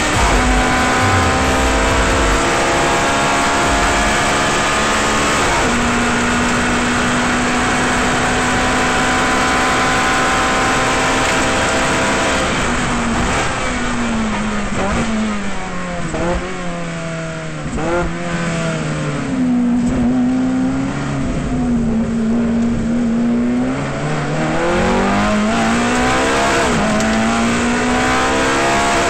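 Ferrari F430 GT race car's V8 engine heard from inside the car: it runs at steady high revs at full throttle for about twelve seconds, then the pitch drops in steps with quick throttle blips as it downshifts under braking, and rises again as it accelerates.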